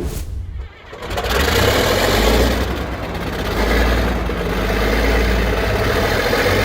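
Large bulldozer's diesel engine running steadily. The sound drops out briefly in the first second, then carries on as a continuous heavy rumble.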